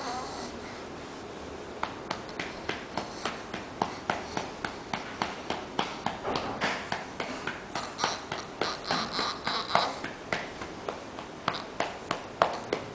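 A hand patting a baby's back to bring up a burp: quick, even pats, about two or three a second, starting about two seconds in.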